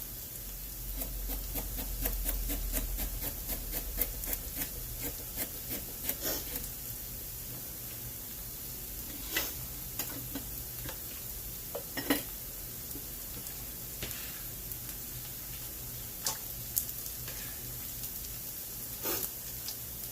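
Food sizzling in a pan on the stove, with a quick run of utensil clicks over the first several seconds and a few sharper knocks of utensil on pan later on.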